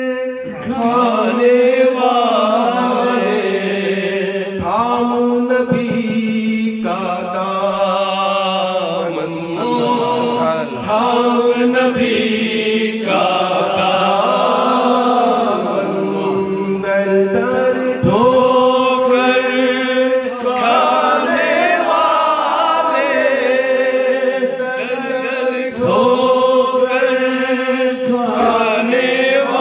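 A man singing a naat, an Urdu devotional song in praise of the Prophet Muhammad, into a microphone. He sings in long, wavering melodic phrases separated by short breaths.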